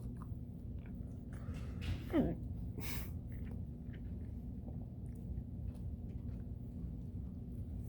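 A man hiccups once about two seconds in, a short voiced "hic" that drops in pitch, followed about a second later by a brief breathy rush, over a steady low hum.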